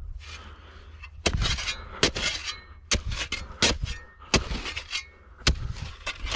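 Steel spade blade chopping and scraping into frozen sand, about eight sharp, irregularly spaced hits. The sand is frozen hard in the frost.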